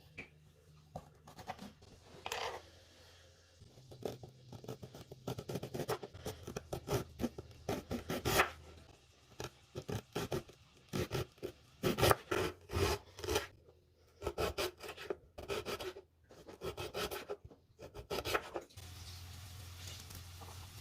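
Hand grater rasping through food in quick, uneven runs of strokes, with a few short pauses.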